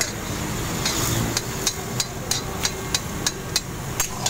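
Metal spatula knocking and scraping against a metal karahi (wok) as a watery curry is stirred, sharp clinks about two to three a second over a steady background noise.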